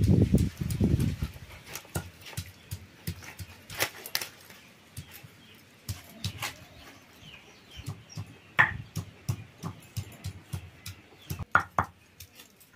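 Irregular sharp clicks and taps of hand food preparation on the ground: a curved bonti blade cutting raw chicken on a leaf and a hand stone working garlic on a grinding slab. A low rumble is heard for the first second or so.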